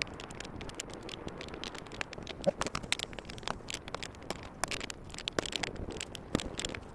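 Irregular sharp metal clicks and clinks of a wrench snugging up the brake booster's mounting nuts.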